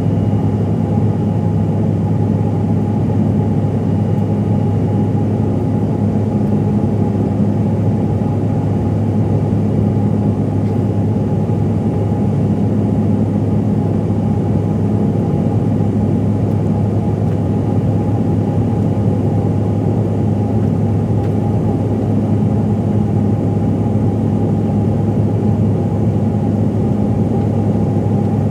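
Steady cabin drone of a CRJ-700 regional jet: its rear-mounted turbofan engines running with a constant low hum and a higher steady tone over a wash of air noise, heard inside the cabin.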